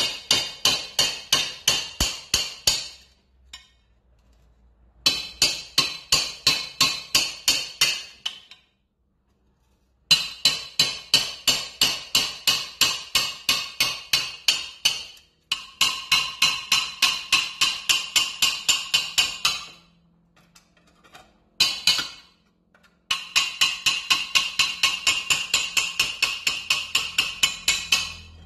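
Rapid hammer taps on metal, about five a second, in runs of a few seconds with short pauses between. A worn flap disc clamped in a steel bench vise is being knocked apart to strip off its abrasive flaps and leave the fibreglass backing.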